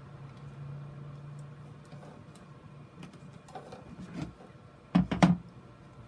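Plastic grid mounting board clattering against a plastic box as it is handled, lifted and set back down: a few light knocks, then two loud knocks close together near the end, over a low steady hum.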